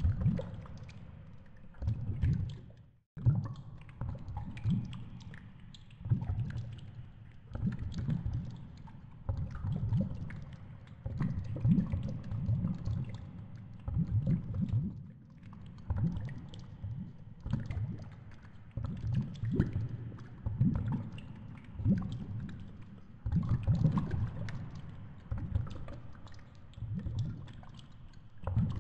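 Underwater water noise picked up by a camera in its housing on a deep-water fishing line: a low, muffled rush and gurgle that swells and fades about every second or so, with faint crackles and clicks over it.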